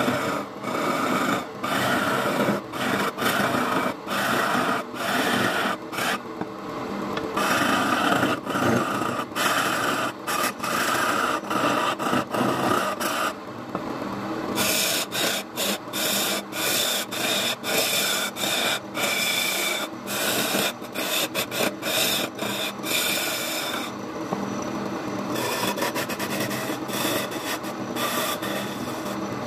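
A hand-held turning chisel scraping and cutting a spinning wooden blank on a wood lathe, a steady rasping shave with many brief breaks where the tool eases off the wood.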